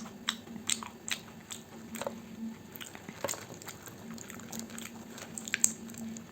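Close-miked mouth sounds of someone biting and chewing food, with a string of sharp crisp crackles and wet clicks at irregular intervals. A faint steady hum lies underneath.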